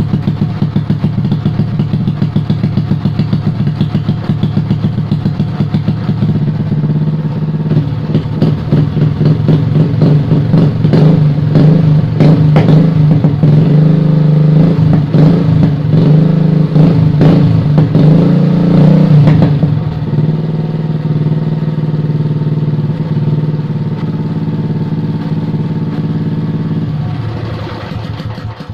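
Small petrol water-pump engine running through a Pro Liner racing motorcycle muffler, with a loud, pulsing exhaust note. It is revved up and down unevenly for a stretch in the middle, then settles to a quieter idle and dies away at the very end.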